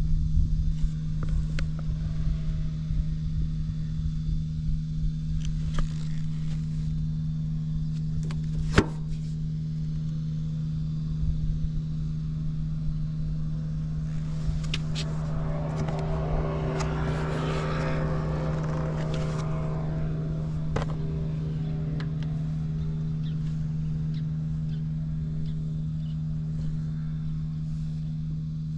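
Honda XL250S single-cylinder four-stroke engine running steadily at idle, with a louder stretch with added higher tones about halfway through and a single sharp click around nine seconds in.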